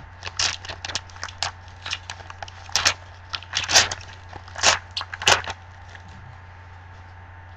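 Foil trading-card pack wrapper crinkling and tearing as it is ripped open and the cards are pulled out: a quick run of sharp crackles that then stops.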